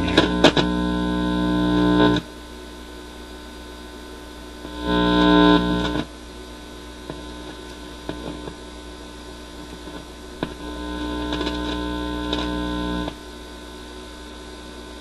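Mains hum from the Admiral record player's amplifier through its speaker, swelling loud three times: at the start, around five seconds in, and from about eleven to thirteen seconds, as the leads on the new stereo cartridge's pins are handled. A few clicks come in the first half-second. Only hum comes through, with no signal from the cartridge, which turns out to be faulty.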